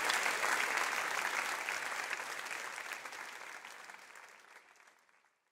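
A congregation clapping: dense applause that fades away to silence over the last few seconds.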